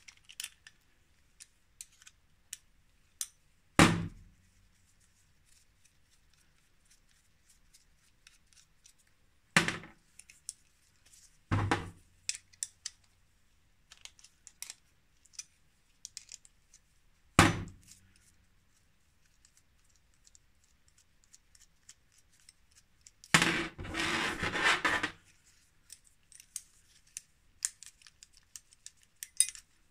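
Small metal clicks and taps of a ring spanner on the pivot bolts of a Mafac Racer centre-pull brake as its aluminium arms are taken apart. Four sharper knocks come through, and a scraping rattle runs for about two seconds toward the end.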